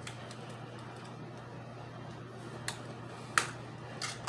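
A few small, sharp clicks and ticks of a thin metal street-sweeper bristle being worked into the seam of a glued plastic power-bank case, the loudest about three and a half seconds in, over a steady low hum.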